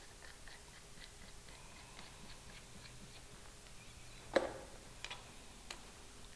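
Light metallic clicks and ticks of a steel jaw being bolted onto a Kurt milling vise, with one sharp clank about four seconds in and two lighter clicks just after.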